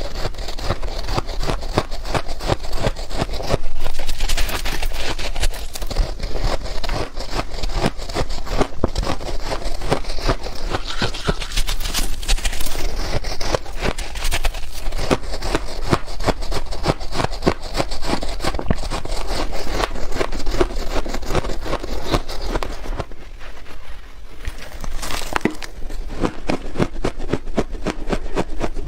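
Loud, dense crunching and crackling as soft frozen ice is bitten and chewed, with a short lull about 23 seconds in.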